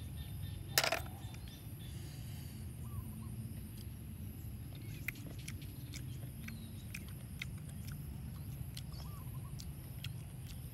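Cooked snail shells clicking as the meat is picked out with a pin, with one sharp crack about a second in. Faint short bird chirps now and then over a steady low rumble.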